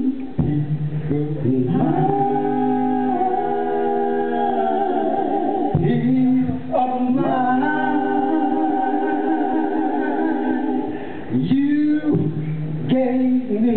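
A cappella vocal group of three men and a woman singing doo-wop close harmony, a male lead over long held backing chords. New phrases start about six and eleven and a half seconds in.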